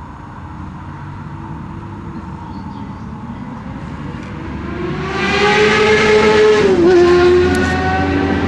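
Motorcycle engine growing louder over about five seconds as it approaches, then running loud at high revs, with a brief drop in pitch near the end.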